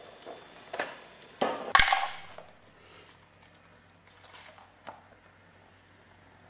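A few sharp knocks and clicks, like hard objects being handled. The loudest cluster comes about two seconds in, with smaller clicks later and a faint low hum after it.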